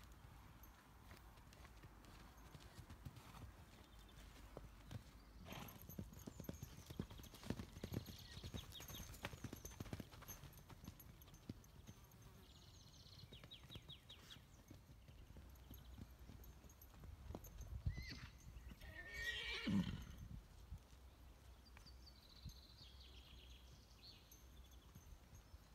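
Pura Raza Española horses, mares with foals, on grass: scattered soft hoofbeats of foals cantering, and one loud whinny about twenty seconds in.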